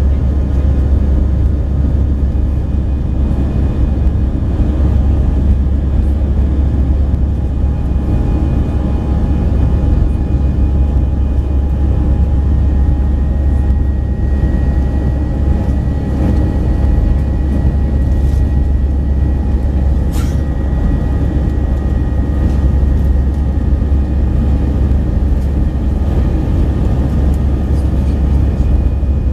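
Steady cabin noise inside an Airbus A319 climbing after take-off: a loud low rumble of the jet engines and airflow, with a faint steady whine from the engines. A brief click about twenty seconds in.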